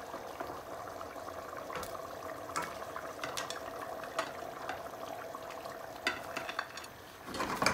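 A wooden spoon scraping fried fish-head pieces off a plate into a pot of cooking curry sauce: a run of short scrapes and knocks of spoon against plate and pot, the heaviest near the end, over the steady sizzle of the sauce.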